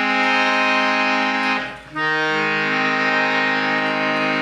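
Harmonium playing held chords in G-sharp major: one chord sustained, a brief break a little under two seconds in, then a new chord whose lowest note shifts shortly after.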